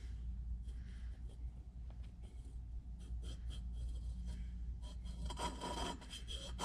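Valve grinding compound being worked from a tube's nozzle around a valve in an aluminium cylinder head. Faint handling clicks over a low steady hum, then a run of quick scraping rubs from about five seconds in.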